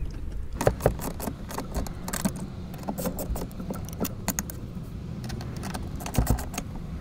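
Small metal clicks and clinks in irregular clusters as a socket and wrench are fitted to 10 mm nuts on the accelerator pedal bracket, over a steady low hum.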